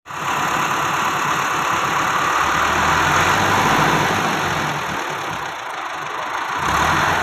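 Massey Ferguson 385 tractor's Perkins diesel engine running steadily, its low engine drone swelling about two and a half seconds in, easing off about five seconds in and swelling again near the end.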